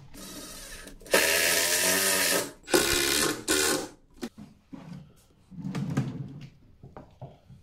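Cordless impact driver driving screws through a drawer box into its drawer front: one long run of about a second and a half, then two shorter bursts. Near the end a drawer slides shut on its runners.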